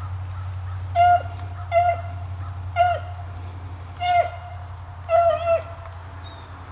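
Beagle baying while running a rabbit: five short, high yelps about a second apart, each dropping in pitch at its end, over a steady low hum.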